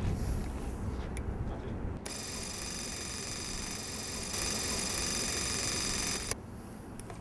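A Super 8 film mechanism whirring steadily for about four seconds, starting and stopping abruptly and a little louder in its second half. Before it, a low rumble.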